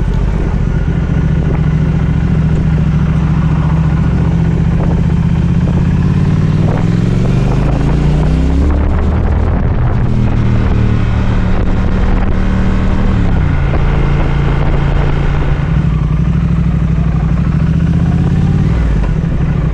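Triumph Speed Twin 1200 parallel-twin engine heard from the rider's seat while riding: a steady cruising note, revs climbing about seven seconds in, a gear change near nine seconds, and revs dropping again around thirteen seconds.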